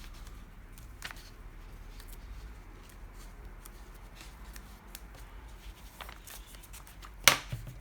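Paper booklet handled and rustled, with light scattered clicks and one sharp knock near the end as something is set down.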